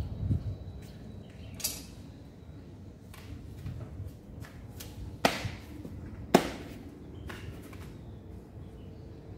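Sharp slaps from a pencak silat performer's strikes and footwork: a fainter one early, then two loud ones about a second apart around the middle, with faint scattered ticks between.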